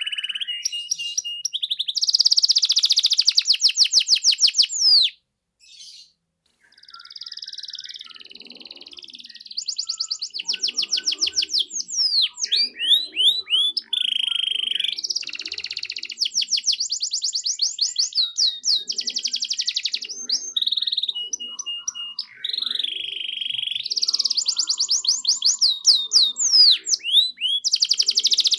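Domestic canary singing long, rapid high-pitched trills and rolls of repeated notes, broken by a short pause about five seconds in.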